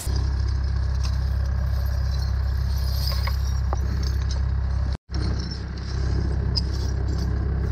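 Steady low engine rumble, with light clinking of broken window glass being handled and bagged. The sound drops out for a split second about five seconds in.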